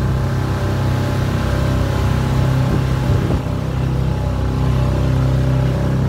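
Small outboard motor pushing an inflatable boat, running steadily at an even cruising speed.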